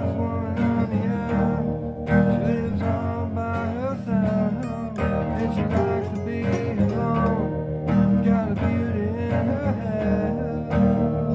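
Music: an Ibanez V70CE acoustic-electric guitar played through a delay pedal and amplifiers, picked notes with some sliding pitches over a steady low line.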